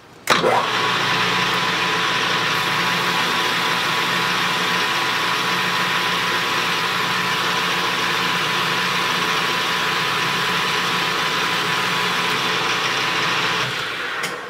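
A metal lathe switches on and runs steadily with a constant hum and whine while the tool takes a 0.050 in cut along a 7075 aluminium bar, shedding long curling chips. It shuts off and winds down near the end.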